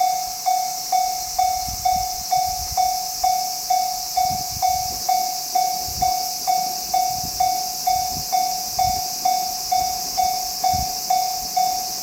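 Japanese railway level-crossing warning bell ringing, a single clear tone struck about twice a second. Irregular low thuds sound underneath from about two seconds in until near the end.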